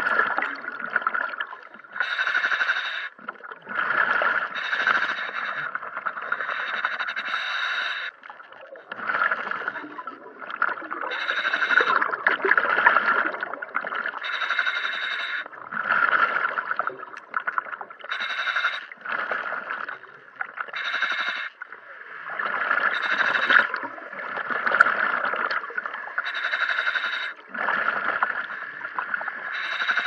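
Scuba diver's regulator breathing heard underwater: repeated surges of hissing and bubbling, one every second or two.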